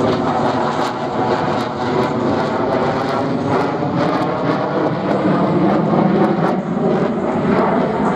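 Loud, steady jet noise from an F-35A's single Pratt & Whitney F135 turbofan engine as the fighter flies its demonstration at a distance.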